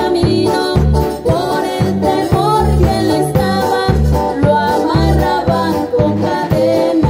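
A small live band playing a worship song: a woman's lead vocal through a microphone over electric guitar, electric bass, keyboard and a drum kit, with a steady beat about twice a second.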